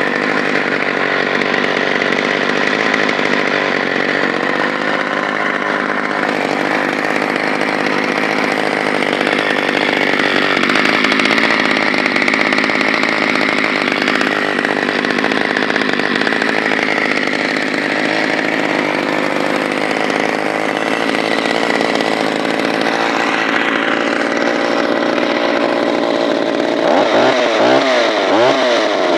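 1977 Partner 1616 two-stroke chainsaw running steadily, with a few quick revs up and down near the end.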